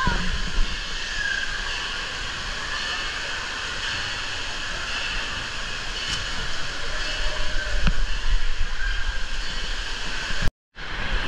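Indoor waterpark ambience: a steady rush of moving water under echoing hall noise, with a low rumble on the camera's microphone. The audio drops out for a moment near the end.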